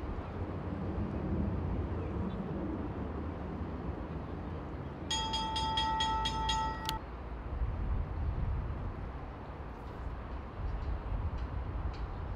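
A horn sounds one steady note for about two seconds in the middle, over a low, steady outdoor rumble. At a polo ground such a horn typically marks the end of a chukka.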